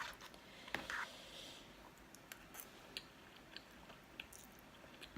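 Faint eating sounds from someone chewing chow mein noodles, with scattered small clicks and soft wet smacks.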